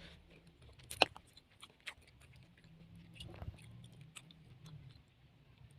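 Faint scattered clicks and taps, the sharpest about a second in and another just under two seconds in, over a low steady hum.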